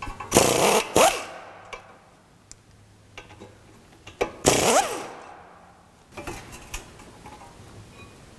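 A power tool run in two short bursts about four seconds apart, its pitch dipping and rising under load, spinning out the two 17 mm brake caliper fasteners, followed by a few light metallic clicks as the caliper is handled.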